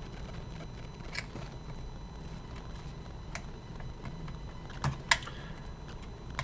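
A few small, sharp clicks and taps, about five, as tools handle and prise out the tiny plastic gear wheels of a Sony WM-FX661 Walkman's tape mechanism. The loudest two come close together near the end.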